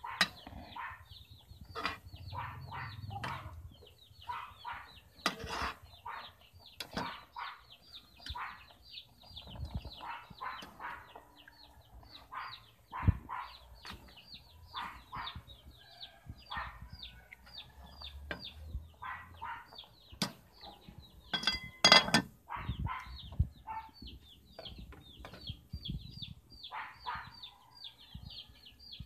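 Chickens clucking, with a steady stream of short, high, falling chick peeps, several a second. A few knocks, and a burst of metal clatter from the aluminium pot, lid and ladle about 22 seconds in.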